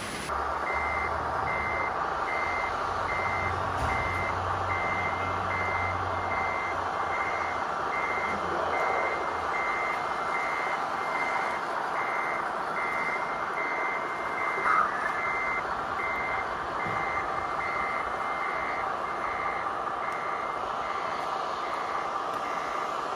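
Scale RC truck's reversing beeper sounding evenly about twice a second over a steady mechanical whine. A low rumble underneath stops about nine seconds in.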